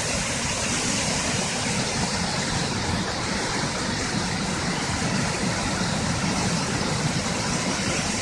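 Floodwater rushing steadily, a constant noise of fast, high water with no breaks.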